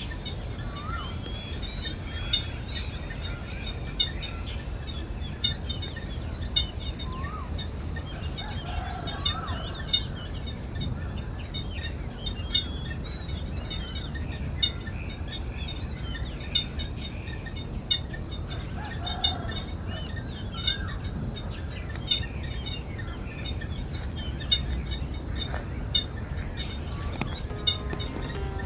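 Forest insects, cicadas and crickets, keep up a steady high-pitched whine, with scattered short rising bird chirps and sharp calls every second or two.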